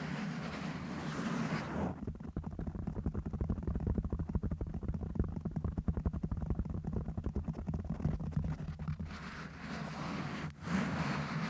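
Scratching and rubbing directly on a microphone, close and rasping. About two seconds in it turns to fast, dense, muffled strokes with a low rumble, then becomes lighter and brighter near the end, with a brief gap.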